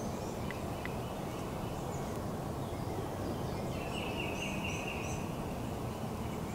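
Woodland creek ambience: a steady rush of flowing water with birds chirping high above it. About four seconds in, a rapid warbling bird call runs for over a second.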